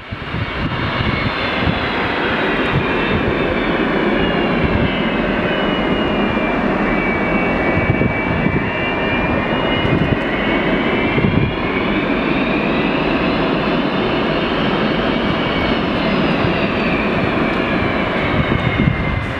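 McDonnell Douglas MD-80 airliner taxiing, its tail-mounted Pratt & Whitney JT8D turbofans running with a steady roar and a high whine that dips, rises and falls again.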